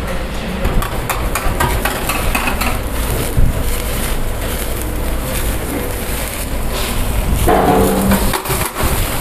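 Busy kebab-kitchen noise at a charcoal grill: a steady rushing noise and low rumble with frequent small clicks and clatter, and a brief voice about three-quarters of the way through.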